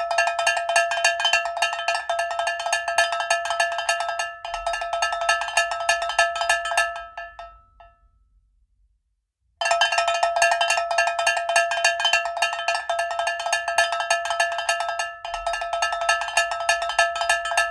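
Cowbell ringing with rapid, continuous clanking strikes. It dies away about eight seconds in, and after a second of silence it starts again and rings on.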